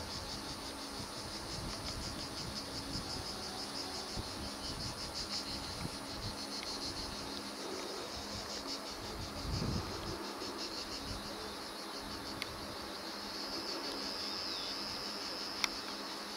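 Insects buzzing steadily in a rapid pulsing drone. Under it, a low rumble fades out about ten seconds in, and there is a single sharp click near the end.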